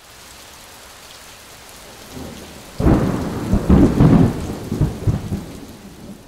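Rain hissing steadily, then a loud roll of thunder about three seconds in that rumbles and fades away.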